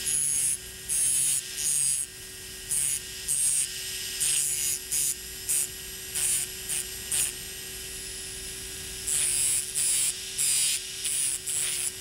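Dental handpiece spinning a carborundum disc at a steady pitch, with about twenty short, irregular bursts of high grinding noise as a steel bur shank is touched against it and lifted away, and a pause of about two seconds just after the middle. The grinding squares off a rounded ledge on the bur shank so it will lock in a latch head.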